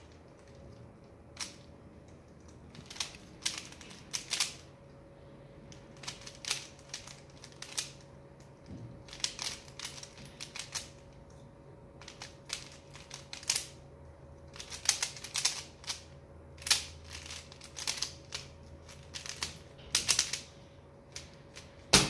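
Plastic 3x3 Rubik's cube being turned fast during a timed solve: irregular plastic clicks and clacks of the layers snapping round, in quick flurries with short pauses between them, over a faint steady hum.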